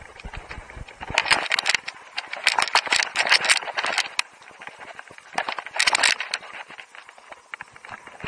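Skis scraping and chattering over hard snow in bursts as the skier turns: a long rough stretch from about one to four seconds in and a shorter one around six seconds.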